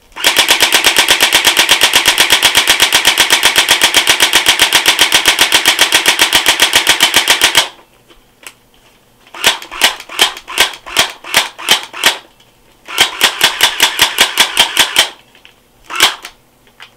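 Crosman Pulse R71 MP5-style electric airsoft gun firing: a full-auto burst of about seven seconds, then a run of single semi-auto shots, a second shorter burst and two last shots near the end. Its gearbox is running on a dead NiCd battery pack revived by freezing and pounding, at a cyclic rate the owner finds a bit lower than with good batteries.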